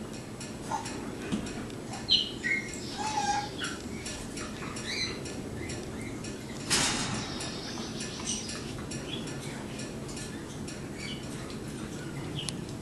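A young raccoon and a Bernese mountain dog puppy playing through a wire cage: short high squeaks and chirps, mostly in the first few seconds, over small clinks and rattles of the wire cage. A single sharp rasping burst about seven seconds in.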